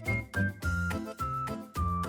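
Background music: a bright melody of short notes stepping downward over a steady bass beat.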